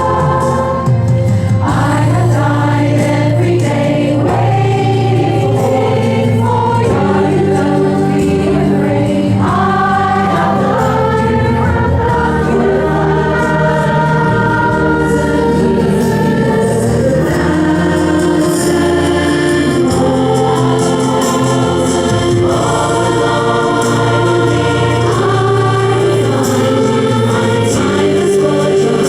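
A choir singing, many voices holding long notes in harmony.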